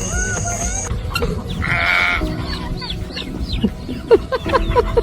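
Livestock bleating, loudest in one cry about two seconds in.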